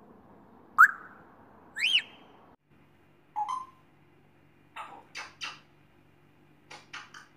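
African grey parrot whistling: a sharp rising whistle about a second in and a higher arched whistle a second later, followed by a short lower call and a string of quick clicks.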